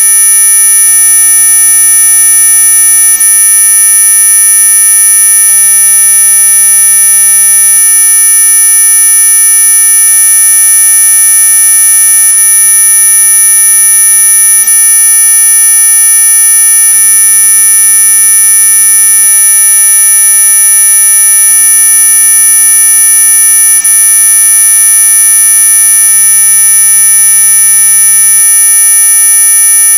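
Synthetic mosquito-repellent tone: several steady electronic pitches sounding together at once, with the strongest ones high up, held without change. It is an audible whine and buzz, not true ultrasound.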